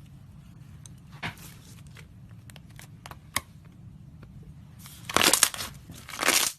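Slime being squeezed and worked by hand, making scattered small clicks and crackles, then two louder crunchy bursts near the end.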